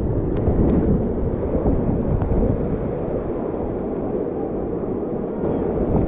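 Steady rush of churning whitewater rapids around a kayak, heard close at the water, with a deep rumble heaviest at the low end.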